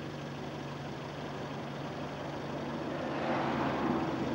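Opel Kadett C car engine running steadily at idle, its note growing louder about three seconds in.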